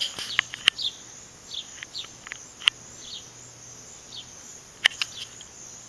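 Small birds chirping outside in short, high, falling notes, over a steady high insect trill such as crickets. A few sharp clicks break in, the loudest about five seconds in.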